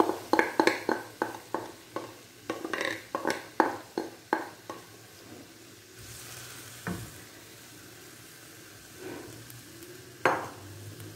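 Plastic spatula scraping and knocking yogurt-marinated chicken out of a glass bowl into a frying pan, a rapid run of clicks and scrapes for the first few seconds. Then the chicken sizzles in the pan in its own marinade liquid with no oil, with a couple more spatula scrapes near the end.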